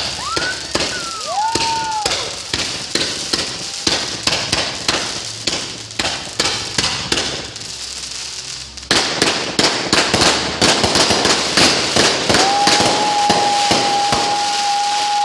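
Consumer aerial fireworks firing in quick succession: a rapid string of pops and cracks, with short whistles rising in pitch in the first two seconds. From about nine seconds in, a dense crackling sets in, and a long steady whistle is held through the last three seconds.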